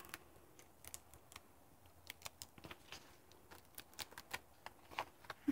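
Faint crinkling of construction paper cutouts being handled, an irregular scatter of small ticks and clicks.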